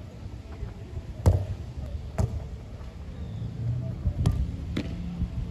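A football being kicked and trapped: four sharp thuds, one about a second in, one about two seconds in, and a close pair just after four seconds.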